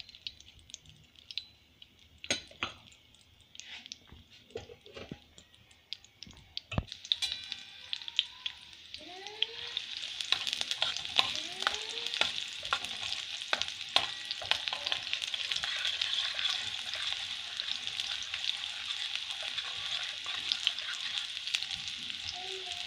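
Sliced garlic frying in hot oil for a tadka, sizzling and crackling as it is stirred with a metal spoon. The first few seconds hold only a few spoon-and-pan clicks; then the sizzle grows louder about a third of the way in and stays steady.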